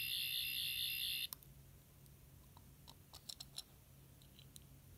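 Tenth Doctor sonic screwdriver replica giving its high, pulsing electronic sound effect with its tip lit, cutting off about a second in. A few light clicks follow as it is handled.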